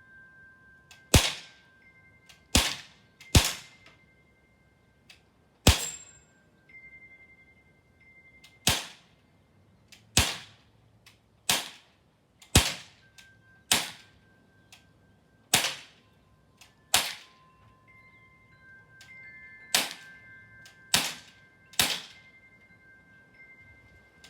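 Crosman CO2-powered semi-automatic BB pistol being fired over and over, about fourteen sharp cracks spaced unevenly one to three seconds apart.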